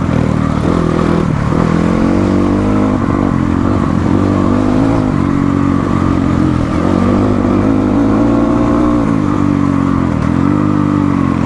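Motorcycle engine being ridden through mud on an off-road trail, revving up and easing off again and again, its pitch rising and falling every second or two.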